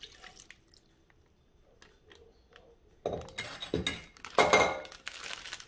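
Marinade poured quietly from a glass bowl into a plastic zip-top bag, with a few faint clinks of the glass. From about three seconds in, the plastic bag crinkles and rustles loudly as it is handled.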